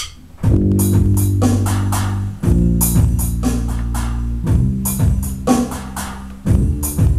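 A pop-rock band comes in together about half a second in, right after the last click of a count-in: bass, electric guitars, keyboard chords and drums with cymbal hits playing the song's instrumental intro, the chords changing about two and a half seconds in.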